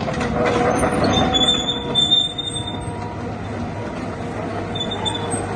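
Case 988 tracked excavator working: its engine running under a dense mechanical clatter, with thin high-pitched metallic squeals coming and going.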